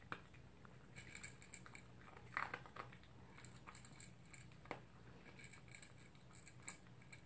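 Toy poodle eating from its food bowl: faint, irregular crunching and chewing, with a few sharper crunches now and then.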